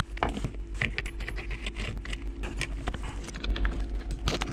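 Small metallic clicks, clinks and rattles of a flange spanner and the flange nut on an angle grinder's spindle, as a worn strip disc is taken off and changed, in irregular handling noises throughout.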